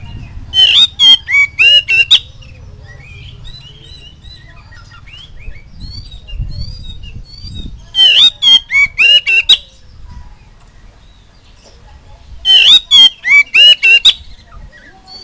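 Oriental magpie-robin (kacer) singing: three loud bursts of rapid, sharp notes that slide in pitch, each about one and a half seconds long, with softer chirps between them.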